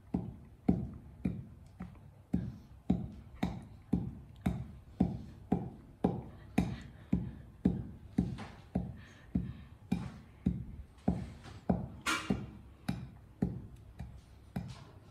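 Wooden pestle pounding grains in a wooden mortar, a steady run of dull thuds a little under two a second.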